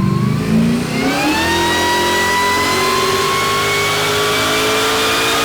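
Supercharged GM LS V8 revving: about a second in its pitch jumps up, then keeps climbing slowly and steadily.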